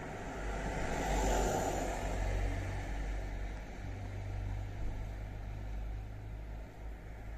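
Steady low hum of road-vehicle noise, swelling for a moment about a second in, as from traffic on the road.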